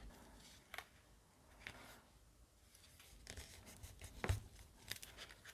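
Faint handling of paper and card, with a few small clicks and light taps as glue is applied to a paper pop-up piece. The sharpest tap comes about three quarters of the way through.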